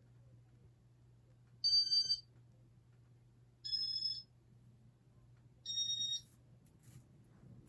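Casablanca IntelliTouch fan control beeping three times, high electronic beeps of about half a second each, two seconds apart, over a low steady hum.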